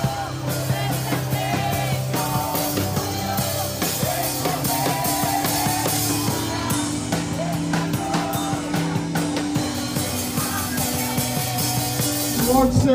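Live worship music: a drum kit with cymbals keeping a steady beat under group singing and held low accompanying notes.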